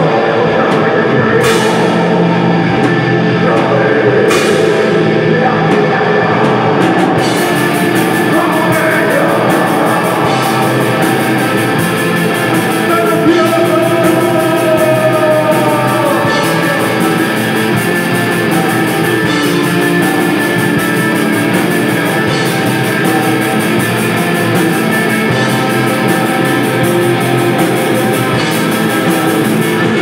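Live black metal band playing: distorted guitars, bass and drum kit with a vocalist singing over them. About seven seconds in, the separate cymbal crashes give way to a constant high wash of cymbals.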